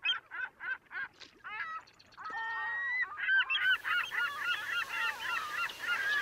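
A flock of birds calling: a quick run of short honking calls, about four a second, then many birds calling over one another from about two seconds in.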